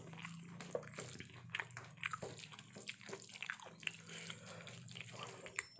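Fingers mixing boiled rice with potato stir-fry on a steel plate: soft, irregular wet clicks and squishes, over a faint steady low hum.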